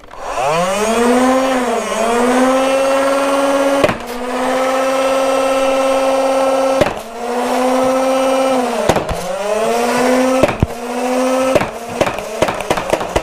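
The Nerf Rival Charger MXX-1200's battery-driven flywheels spin up to a steady whine. The pitch dips sharply with a click each time a round is fired through them, about six shots a second or two apart. A quick run of clicks follows near the end.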